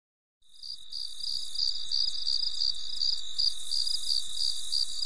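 Insects chirping in a steady, high-pitched chorus that pulses about three times a second, fading in over the first second.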